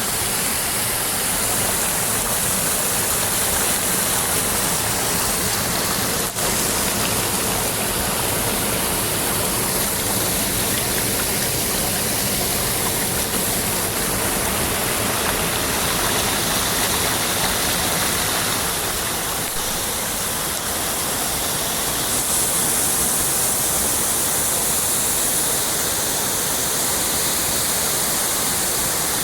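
Rain-swollen water pouring over a dam, a steady rushing of falling water.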